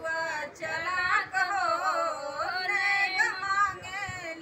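A woman singing the drawn-out opening of a Bhojpuri wedding folk song, with long held notes that waver in pitch.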